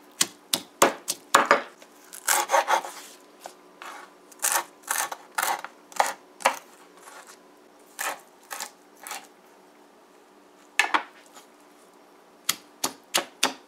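Stone pestle pounding garlic, hot pepper and herbs in a granite mortar, mixed with a knife chopping celery on a wooden cutting board. Irregular knocks, a pause of a couple of seconds past the middle, then a quick, even run of strikes near the end.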